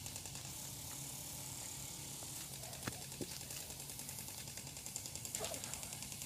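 Quiet outdoor ambience with a fast, even ticking high up and a couple of soft knocks about three seconds in.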